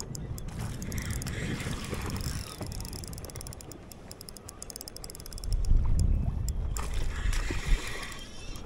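Wind buffeting the microphone, with a strong gust about two-thirds of the way through, over choppy water splashing against the side of a small boat.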